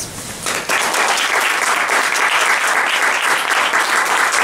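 Audience applauding, starting about half a second in and going on at a steady level.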